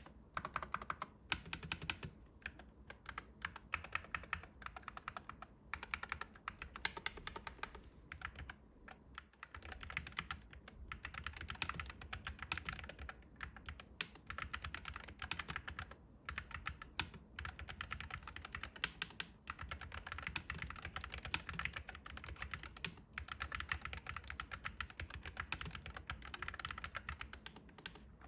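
Fast continuous typing on a MonsGeek FUN60 Max HE magnetic-switch (Hall-effect) mechanical keyboard: a dense stream of key clacks with short pauses now and then.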